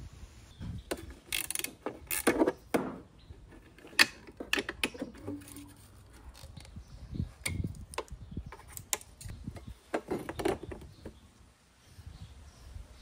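Irregular clicks, scrapes and metallic rattles of hands and tools working on a Yamaha Vino 125 scooter's front bracket, disconnecting and removing the horn.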